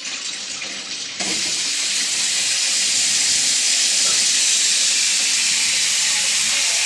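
Water running steadily from a kitchen tap, turned on with a sudden start about a second in.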